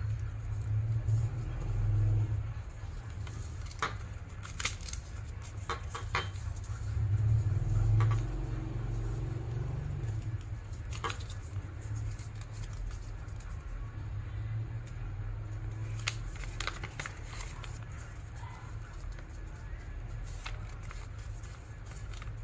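A sheet of origami paper being handled, folded and creased by hand: scattered short crackles and crinkles of the paper over a low, steady rubbing rumble.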